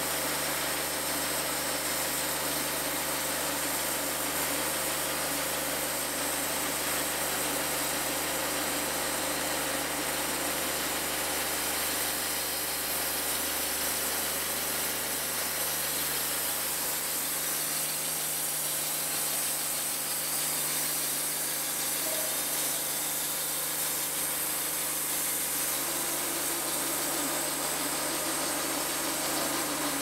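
Wood-Mizer portable bandsaw sawmill running steadily, its engine and band blade holding an even pitch.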